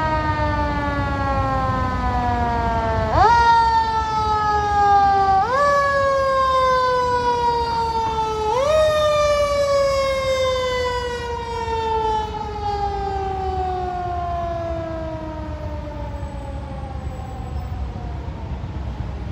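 Siren of a fire department heavy rescue truck. It winds up quickly three times, falls slowly in pitch after each rise, and the last long fall fades away toward the end. Low traffic rumble runs underneath.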